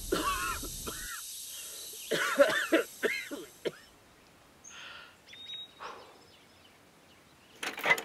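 Short wordless vocal sounds from a cartoon character, like coughs and throat-clearing. They start over the dying rumble and hiss of an explosion, which cuts off about a second in, and the hiss fades a few seconds later. Faint high tones come in the middle, and more wordless vocal sounds follow near the end.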